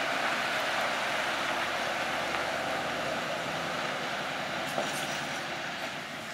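Scania R650 V8 heavy truck pulling away with a loaded low-loader trailer: a steady engine and tyre rumble that fades gradually as it recedes. There is one brief click about three-quarters of the way through.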